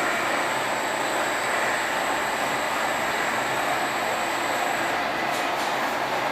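Candy-cutting machine running, a steady mechanical rush with a thin high whine that stops about five seconds in. A few light clicks follow.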